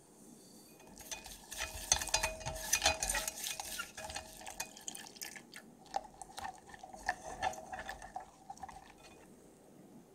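Wire whisk stirring and rapidly clinking against a small enamel saucepan. Two spells of quick clinks, separated by a short break about five seconds in.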